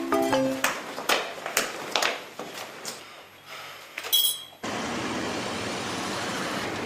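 Scattered sharp clicks and knocks, with a bright ringing clink about four seconds in. Then an abrupt cut to steady city traffic noise.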